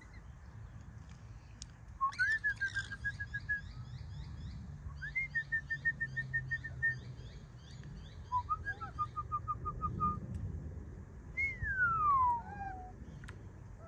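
Young rainbow lorikeet singing a little song: three short runs of rapid, evenly repeated whistled notes, with fainter fast chatter above them, then one long falling whistle near the end.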